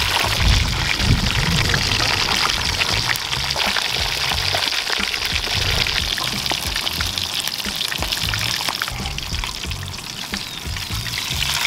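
Tilapia deep-frying in a pan of hot oil, sizzling steadily with many fine crackles. Background music with a bass line plays underneath.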